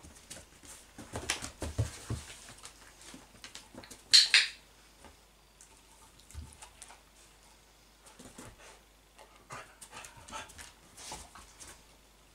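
A dog moving about on a wooden floor with scattered soft knocks and ticks, and one sharp double click from a training clicker about four seconds in.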